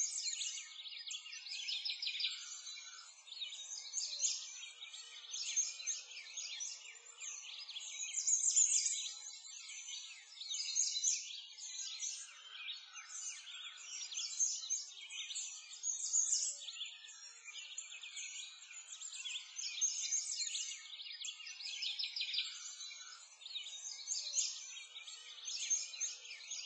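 A dense chorus of many small birds chirping and singing together, high-pitched and continuous.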